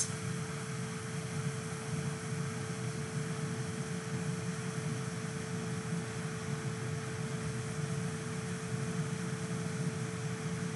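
Steady lab background noise: an even mechanical hum and hiss with one constant mid-pitched tone, and no distinct events.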